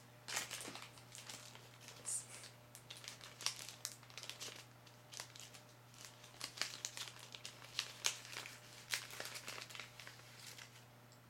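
Small plastic blind-bag baggie crinkling and crackling in the hands as it is opened, with many small irregular crackles.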